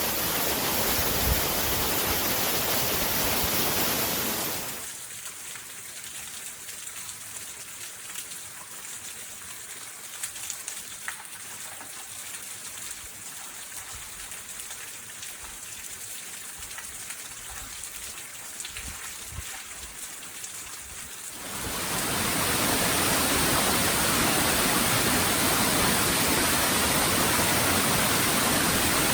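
Waterfall: a steady rush of falling water. About five seconds in it drops abruptly to a much quieter, thinner water sound with a few faint ticks, and about 21 seconds in the full rush comes back.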